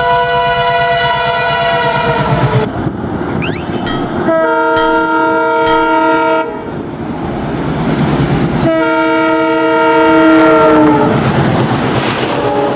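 Train horns sounding three long blasts, the first and last sliding down in pitch at their ends as the train passes, over the rumble and clickety-clack of train wheels on the rails.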